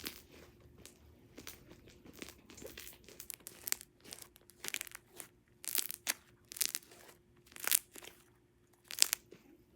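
Homemade glue slime squished and stretched by hand, giving irregular wet crackling and popping, louder from about the middle on.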